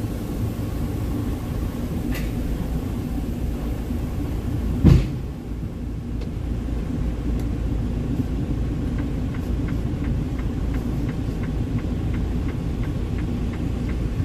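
Diesel semi-truck tractor, a Freightliner Cascadia, idling with a steady low rumble. There is a single loud thump about five seconds in, and a run of light, even ticks, about two or three a second, over the last few seconds.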